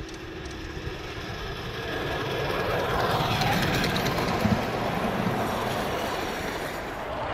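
Miniature railway train running along the track, growing louder over the first few seconds and then holding steady, with one sharp knock partway through.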